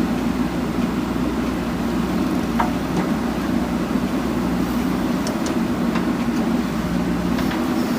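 JCB backhoe loader's diesel engine running steadily under work, with a few faint clinks.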